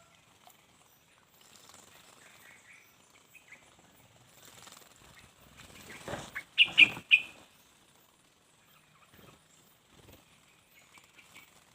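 Small bird bathing: a quick burst of wing-flapping and splashing in the water about halfway through, four or five sharp flutters in just over a second, with faint high chirps before and after.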